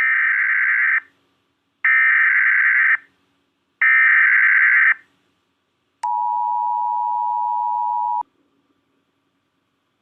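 Emergency Alert System tones: three one-second bursts of the SAME header data signal, then the two-tone attention signal held steady for about two seconds and cutting off suddenly.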